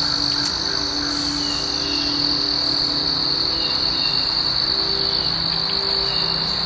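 Insects, cricket-like, trilling in a steady, unbroken high-pitched chorus, with a faint low hum beneath.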